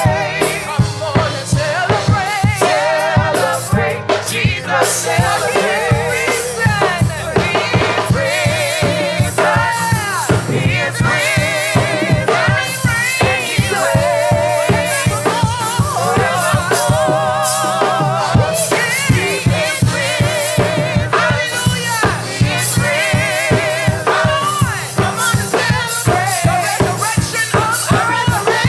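Gospel praise music: sung vocals with vibrato over a drum kit and bass keeping a steady beat.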